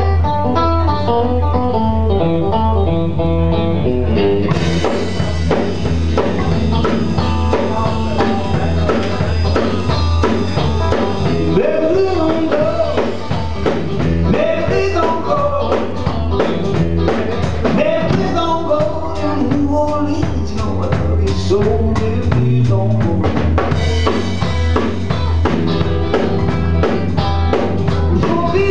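A live blues-rock band playing at full volume: electric guitar, electric bass and a drum kit on a driving blues riff, with a man singing. The riff starts thinner and the full band with cymbals fills in about four and a half seconds in.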